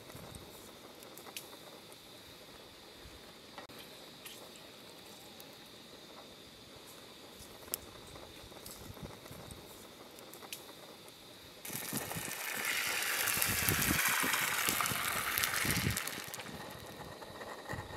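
Low steady hiss with scattered faint clicks, then about twelve seconds in a loud sizzle as canned beans in sauce are poured into a hot frying pan on a camping gas stove, with soft plops under it; the sizzle dies down after about four seconds.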